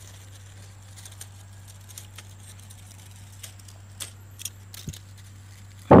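Dry fallen leaves crackling and rustling faintly as fingers sift through them: a few small scattered ticks over a steady low hum. A sudden loud rush of noise starts right at the end.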